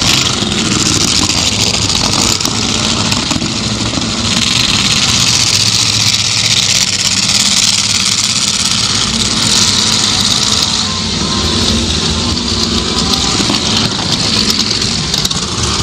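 Demolition derby car engines running steadily, heard from inside a car's cabin, with a loud steady hiss over the low engine rumble.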